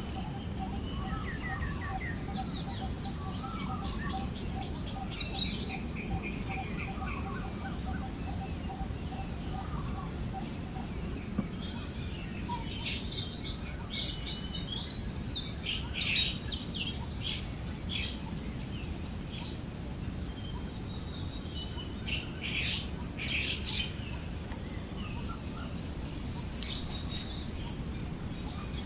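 Forest birds chirping, with short calls and quick downward-swept notes that come thickest in the middle, over a steady high insect trill and a soft rushing breeze. A rapid series of low, even notes runs through the first ten seconds or so.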